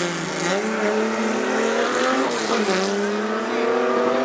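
Drag-racing car engine accelerating hard. Its pitch climbs, drops sharply at a gear change near the middle, then climbs again.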